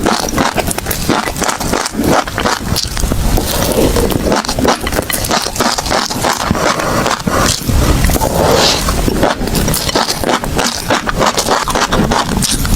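Close-miked chewing of crunchy food: dense, crisp crunching and crackling bites that run on without a break.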